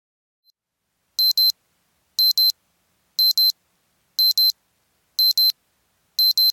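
Digital timer alarm going off: high-pitched double beeps, beep-beep, repeating once a second, starting about a second in. It signals that the five-minute countdown has run out.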